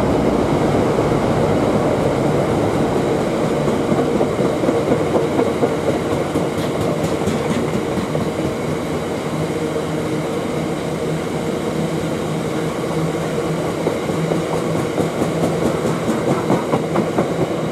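Loaded freight box wagons rolling past at speed, a steady rumble of wheels on rail with clickety-clack over the rail joints. Near the end the clatter comes through sharper and more evenly spaced as the last wagons go by.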